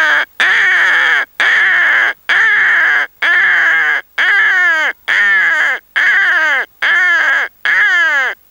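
A man imitating a crow by mouth: a steady run of about nine caws, roughly one a second, each call falling in pitch.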